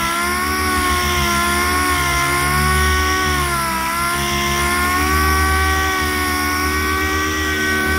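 Air-powered sander running against a truck's painted body panel. Its whine dips in pitch and recovers every second or two as the pad is pressed and moved, over a steady hiss of air.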